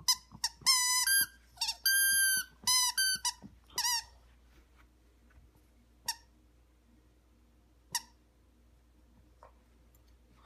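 Rubber squeaky dog toy squeezed and chewed by a puppy: a quick run of high squeaks of steady pitch in the first four seconds, some held for about half a second, then two single short squeaks.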